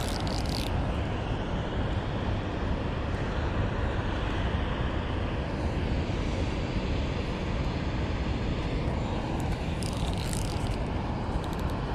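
Steady rush of a river's current over rocks and riffles, with wind buffeting the microphone.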